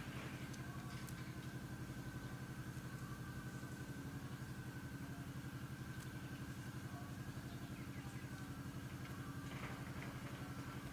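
An engine idling steadily, a constant low hum with a fast, even pulse and a few faint clicks.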